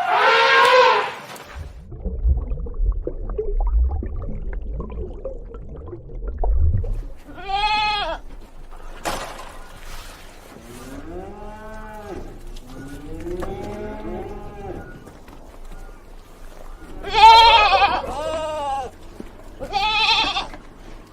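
Sheep bleating: about six separate wavering calls, some in the middle lower-pitched, the loudest near the end. Before them, a long held pitched call ends about a second in, followed by a low rumble.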